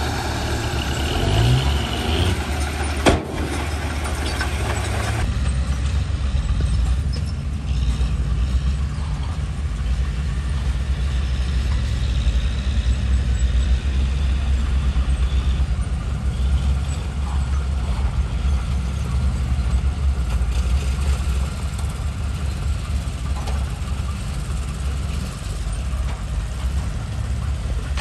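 Heavy diesel earthmoving engine running with a steady low drone. For the first five seconds a louder, busier layer of machine noise rides over it and then falls away, with a single sharp knock about three seconds in.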